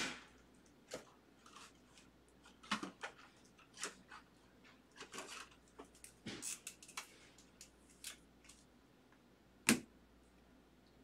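Faint, irregular clicks, taps and rustles of trading-card packs and cards being handled and opened on a table, a dozen or so short sounds with the sharpest near the end.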